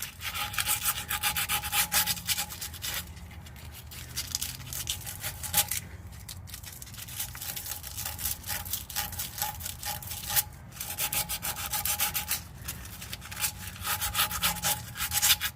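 Sandpaper rubbed rapidly back and forth over a rusty steel exhaust clamp and pipe, scrubbing the rust off, with a few short pauses between runs of strokes.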